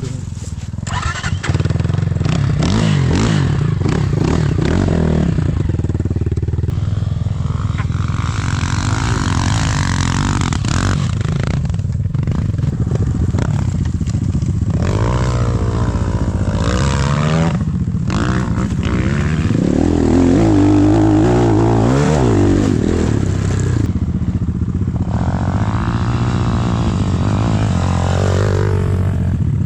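Enduro dirt-bike engine revving hard, its pitch repeatedly rising and falling. It gets louder about a second and a half in and stays loud throughout.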